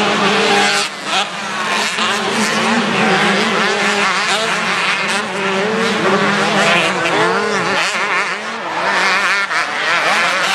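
Motocross dirt bike engines revving hard as several bikes race over the track. Their overlapping pitches climb and drop with throttle and gear changes.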